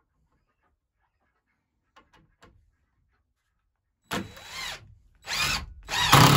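Power drill driving a long screw into wood. A few faint clicks come about two seconds in. About four seconds in the motor whirs in three short trigger pulls, its pitch rising and falling each time, then runs on steadily at the very end.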